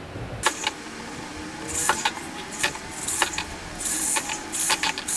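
Repeated short scraping strokes mixed with sharp clicks and light knocks, coming about once or twice a second and getting busier toward the end.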